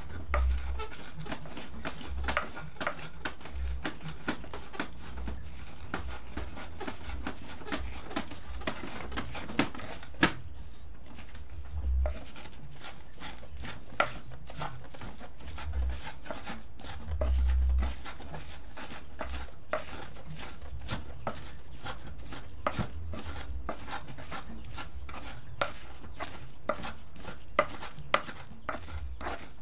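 Pestle crushing and grinding spices in a cobek mortar: a long run of irregular sharp clicks and knocks, with a few dull thumps now and then.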